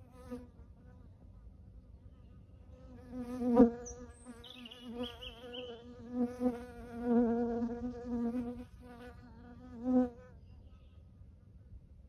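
A flying insect buzzing close to the microphone, a wavering hum that comes and goes as it moves about. It is heard briefly at the start, then for about seven seconds, loudest about three and a half seconds in and again near ten seconds.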